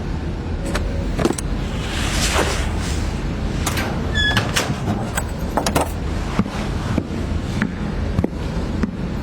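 Steady low rumble, like street traffic, with scattered short clicks and knocks through it.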